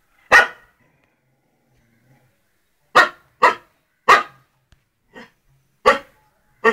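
Rajapalayam dog barking: a single bark, then after a pause of about two and a half seconds a run of barks roughly every half-second to second.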